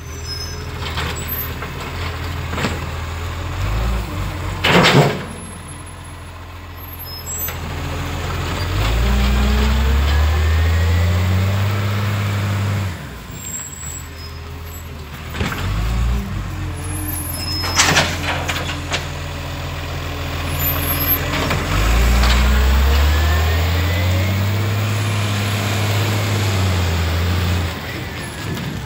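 Garbage truck's diesel engine running, with a sharp air brake hiss twice. After each hiss the engine revs up, holds high for a few seconds, then drops back suddenly.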